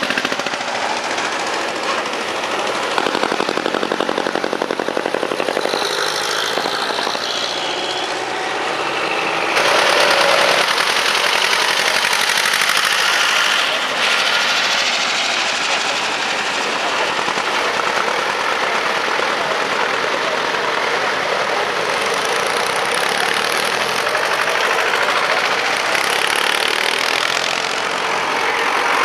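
Engines of parade vehicles running as they pass close by one after another: a Unimog truck, then a car towing a trailer, then a Mercedes MB-trac tractor. The running is continuous, with a steady rapid firing beat, and gets a little louder about ten seconds in.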